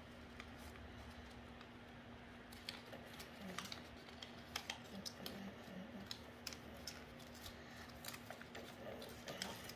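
Sheets of origami paper crinkling and creasing under the fingers as they are folded by hand: quiet for the first two and a half seconds, then irregular soft crackles and clicks. A faint steady hum sits underneath.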